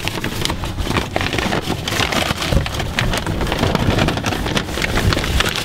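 Crinkling and rustling of old paper wrapping being pulled open by hand inside a cardboard parts box, a dense run of crackles.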